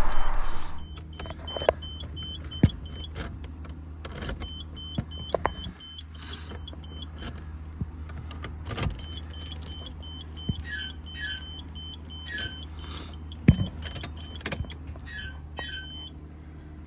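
Electric fuel pump of a Nissan Skyline R32 GT-R humming steadily, fed through a temporary bypass wire, which shows the pump works and points to the burnt relay wiring as the fault. Scattered clicks and knocks from wiring being handled, and several short runs of rapid high electronic beeping.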